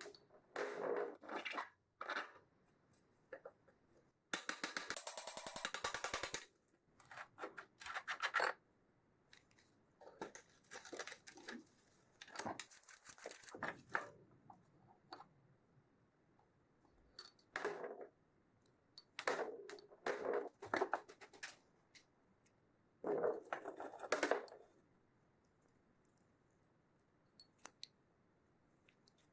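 Bicycle crunching while being pedalled: irregular bursts of gritty crunching and clicking with short pauses between them, and a dense run of rapid clicks about four seconds in. Such a crunch typically comes from a worn bottom bracket, loose pedals or a dirty drivetrain.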